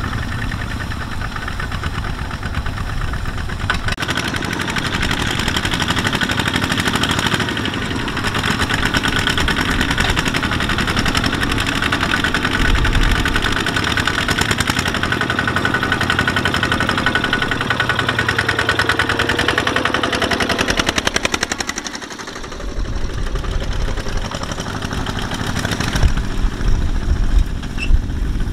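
Single-cylinder diesel engine of a two-wheel walking tractor running steadily under load, hauling a loaded trailer, with fast, even firing pulses. The sound drops briefly about three-quarters of the way through, then comes back with heavier low thumps near the end.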